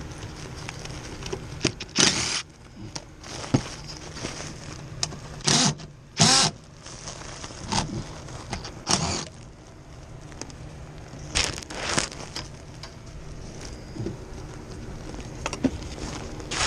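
Work-handling noises: several short rustles, scrapes and knocks of parts and tools being moved, over a steady low hum.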